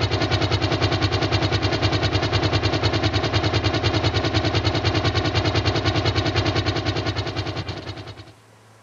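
A small engine running at a steady idle with an even pulsing beat, about ten beats a second, fading out near the end.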